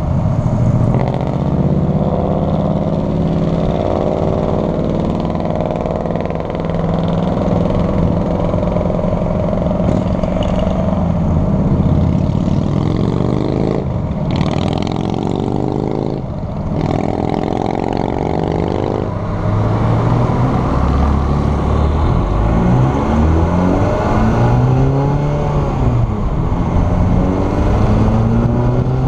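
Car engine idling while stopped at a light, then accelerating away from about two-thirds in, its pitch rising and dropping back several times as it pulls through the gears.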